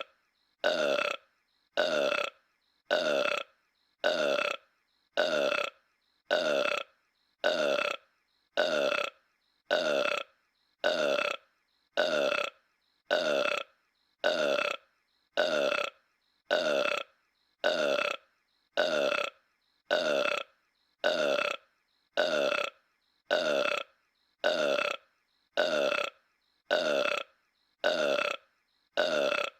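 The same short cartoon burp of King Homer, the giant-ape Homer Simpson, looped over and over. There is one identical burp about every second, with silence between.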